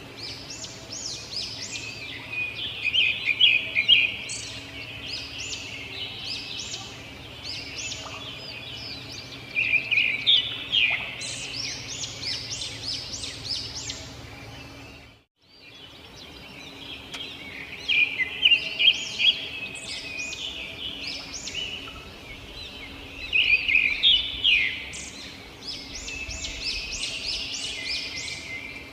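Robin singing in repeated bursts of rapid, high chirps and trills, with quieter chirping between bursts, over a faint steady low hum. The sound drops out briefly about halfway through.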